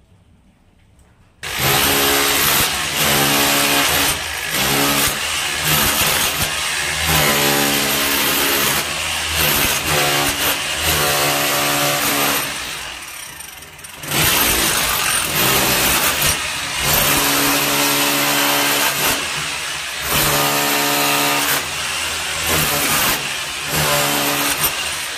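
Corded electric chipping hammer chiselling brick and mortar out of a pre-cut pipe chase in a wall. It starts about a second and a half in and runs loudly in long stretches, with a short pause about halfway through.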